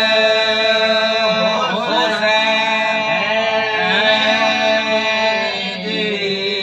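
A man chanting a Muharram lament solo into a microphone, without instruments, in long held, wavering notes that glide from one pitch to the next.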